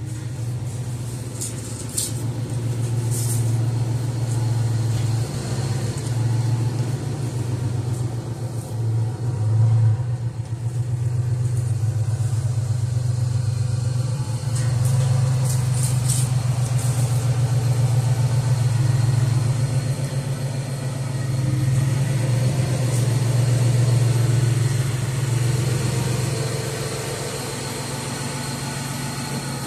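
Car engine running, its revs swelling and easing several times, most strongly around ten seconds in and again in the middle. The engine is most likely the Cadillac Eldorado's Northstar 32-valve V8.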